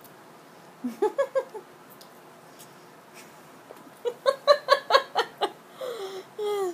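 A person laughing: a short burst about a second in, then a longer run of quick, even 'ha-ha' pulses around four to five seconds in, with a falling voiced sound near the end.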